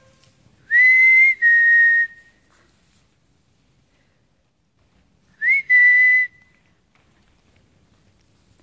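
Whistling to call puppies: two high calls, about a second in and again around six seconds. Each is a short upward note running into a steady held tone, and the first is broken once into two held parts.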